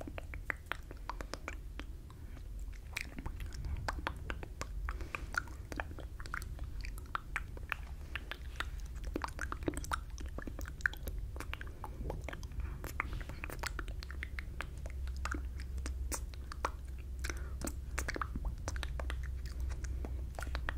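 Close-miked mouth sounds with almost no voice: a dense, irregular run of wet clicks, tongue taps and lip smacks from inaudible whispering into a fur-covered microphone.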